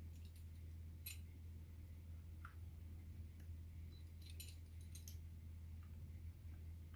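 Faint, scattered clicks and light taps from a metal pizza cutter rolling through soft dough on a wooden board, over a low steady hum.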